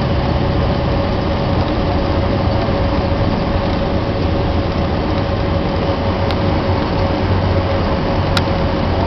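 Cabin noise of an Embraer EMB 120 Brasilia turboprop: its engines and propellers running with a steady drone, a constant mid-pitched tone over a rushing noise and a low hum.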